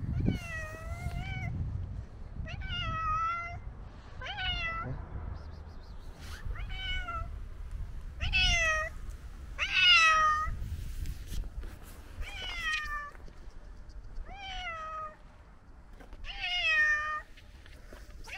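Old tabby cat meowing over and over, about nine drawn-out cries, one every couple of seconds, each bending in pitch: a hungry cat crying for food.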